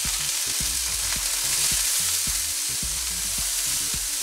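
Bean sprouts sizzling steadily in hot oil in a non-stick wok as they are stir-fried with a silicone spatula, seasoned with salt, pepper and MSG and being quickly toasted.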